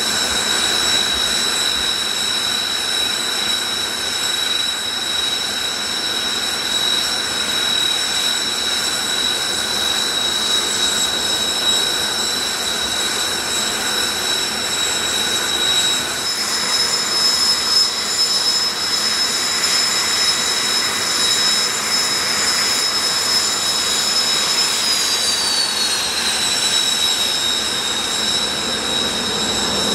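Jet engines of Blue Impulse Kawasaki T-4 trainers running with a steady high whine over a rush of noise. About 16 seconds in the whine shifts to a new set of tones, and around 25 seconds in one tone slides down in pitch as the engine power changes.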